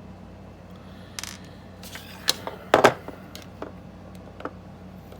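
Parts of a Daisy Powerline 426 pistol being handled and set down on a work surface: a handful of sharp clicks and clinks, the loudest pair about three seconds in.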